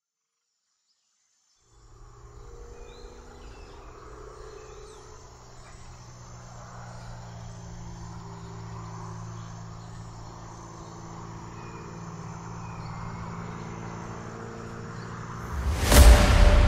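Starts from silence, then about two seconds in a steady low drone fades in under faint, regular cricket-like chirping and slowly builds. Near the end a sudden loud hit with a whoosh cuts in, the opening impact of a cinematic soundtrack.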